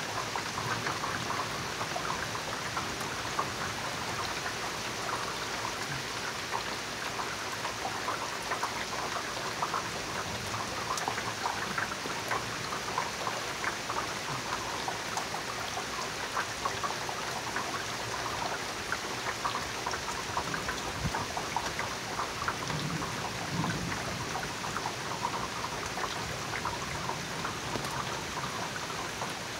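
Steady rain falling, with many small sharp drip and splash ticks close by.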